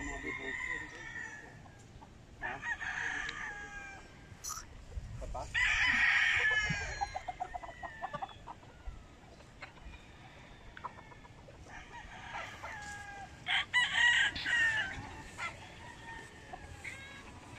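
Gamecocks crowing, one long crow after another every few seconds, the loudest a little past the first third and again near the end, where two crows overlap.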